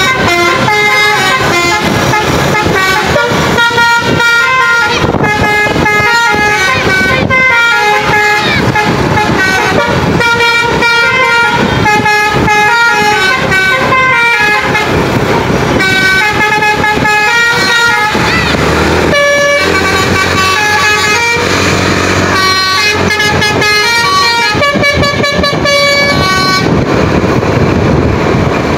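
Tour bus's 'basuri' telolet musical air horn playing a quick melody of short, steady notes stepping up and down in pitch. The tune breaks off briefly about eighteen seconds in and then carries on.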